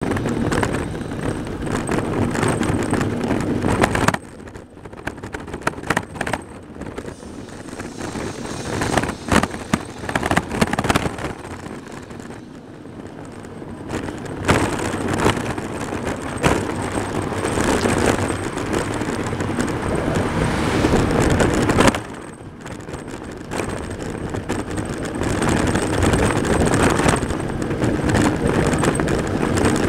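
Wind and road noise on a bicycle-mounted camera's microphone while riding, with knocks and rattles as the camera shakes, and cars driving close by. The noise drops away suddenly about four seconds in and again about three-quarters of the way through, then builds back up.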